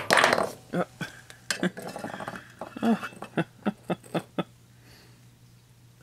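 Slotted metal spatula clattering and tapping against a glass light bulb and the microwave's metal floor while prying at the bulb, which is stuck fast. A loud clatter comes first, then a string of sharp clinks and knocks that stop about four and a half seconds in.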